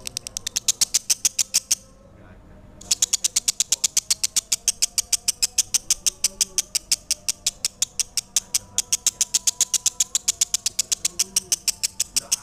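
Lovebird singing a long, fast chattering trill: sharp high chirps at about eight a second, which break off for about a second near two seconds in and then run on without pause.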